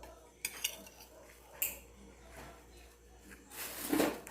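Faint handling sounds while assembling a sandwich: a few light clicks and taps, then a louder brief rustle near the end.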